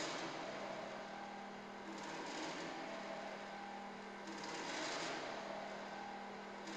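Experimental electronic noise piece: a steady hum under continuous static hiss, with the hiss swelling brighter in waves every two seconds or so.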